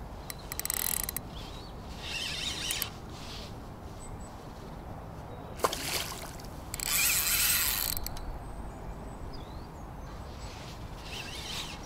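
Spinning reel's drag clicking in several short bursts as a hooked pike pulls line against the bent rod. The loudest burst, about seven seconds in, comes as the fish splashes at the surface.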